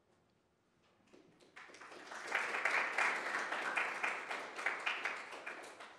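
Audience applauding: many hands clapping together, starting about a second and a half in, quickly reaching full strength and tapering off near the end.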